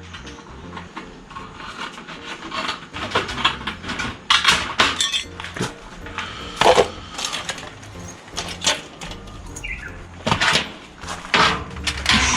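Irregular knocks and metallic clinks of hand work with tools and building materials, sharp and unevenly spaced.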